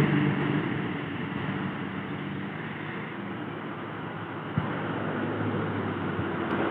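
Diesel truck engines pulling up a grade as a truck passes close and draws away, the engine note fading over the first few seconds. One short tap comes about two-thirds of the way through, and another vehicle's engine and tyres swell as it approaches near the end.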